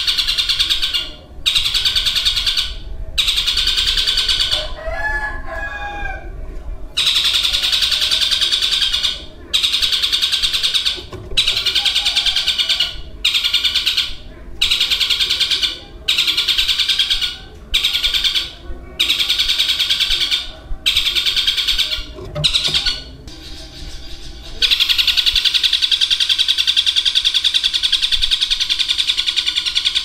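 Long-tailed shrike (cendet) singing rapid, dense chattering phrases one to two seconds long with short breaks between them, then one long unbroken run from about 24 seconds in. These long rapid runs are the mimicked 'shots' prized in a cendet's song.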